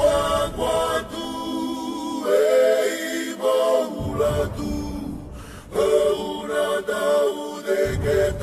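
A group of voices singing a cappella in harmony, several sung lines held together and moving from note to note.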